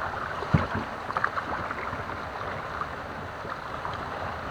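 Kayak paddling on still water: the paddle dipping, with water swishing and dripping steadily, and a short low knock about half a second in.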